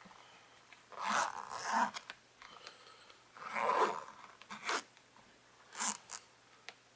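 Zipper on a vinyl motorcycle tank-bag phone pouch being pulled closed in about four short strokes, with pauses between them.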